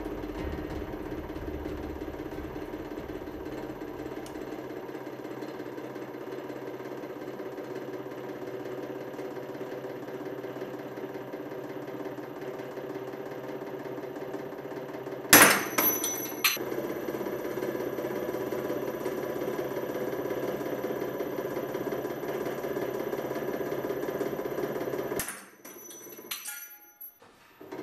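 Hydraulic press running with a steady mechanical hum as it squeezes a pair of cheap steel combination pliers. About halfway through there is a loud sharp crack, followed by a few smaller cracks, as the pliers give way under the load. Near the end the hum cuts off.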